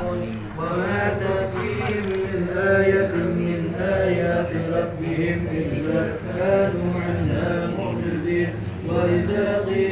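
A group of men chanting Islamic prayers together in unison.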